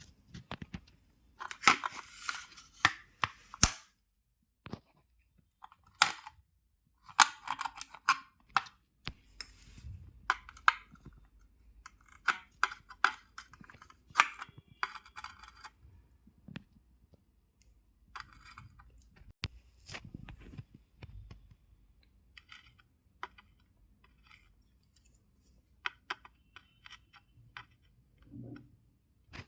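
Irregular clicks, taps and short scraping, rasping sounds of small parts being handled and worked on, busiest in the first half and sparser later.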